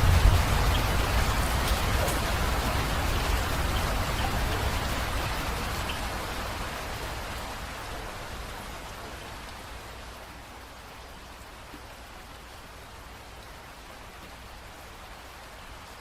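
Rain falling, heavy at first with a low rumble underneath, then easing off over about ten seconds to steady, lighter rain.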